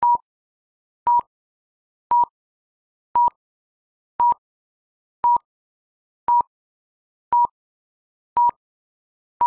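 Film-leader countdown beeps: a short, high beep of the same pitch once every second, with silence between, about ten in all.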